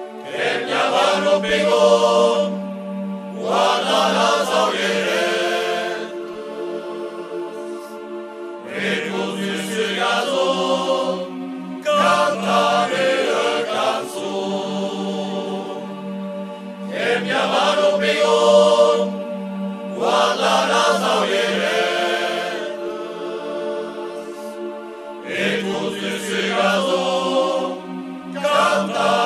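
Voices chanting in a choir over a low held drone note. The sung phrases come and go every few seconds, and the drone drops out twice.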